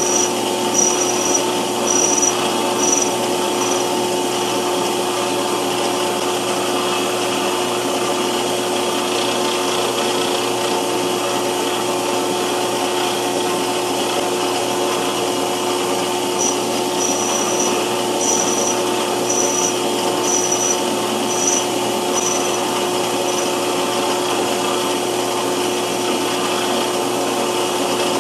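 Metal lathe running steadily while a cutting tool turns a taper on a bronze bar, a continuous motor hum with the cutting noise over it. Short high chirps come about once a second for the first few seconds and again past the middle.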